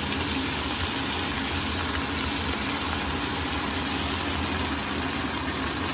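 Vegetables sizzling in hot oil in a wok as they stir-fry: a steady hiss with faint crackles, over a low steady hum.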